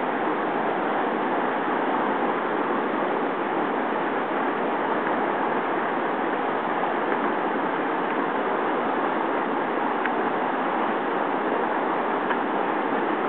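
River rapids rushing steadily over rocks: a constant, unbroken noise of churning whitewater.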